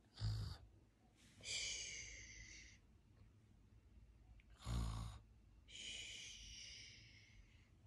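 A person's breathy vocal sounds, repeated twice: each time a short sharp huff or sniff, then about a second later a high, thin squeaky sound lasting one to two seconds.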